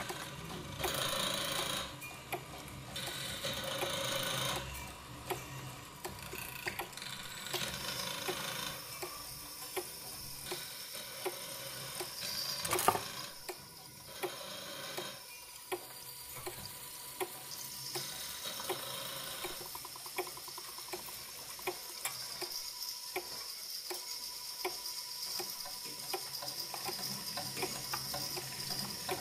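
Electromechanical sound-art instruments (relays, small motors and fans, with a prepared electric guitar) playing regular mechanical ticking. Hissing noise swells come in the first few seconds, there is one sharp loud click about 13 seconds in, and a thin steady high tone holds from about 8 seconds on.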